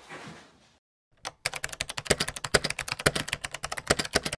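Rapid keyboard typing clicks, about ten keystrokes a second and unevenly spaced. It is a typing sound effect for a caption being typed out letter by letter. It starts about a second in, after a short silence, and stops abruptly.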